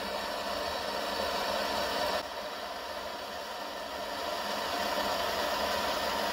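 Handheld butane-propane gas torch burning with a steady hiss, its flame heating a steel bolt held in pliers. The sound drops suddenly about two seconds in, then slowly builds again.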